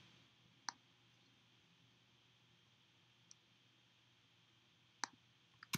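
Near silence broken by a few isolated computer mouse clicks, spaced a few seconds apart, with a quick pair near the end.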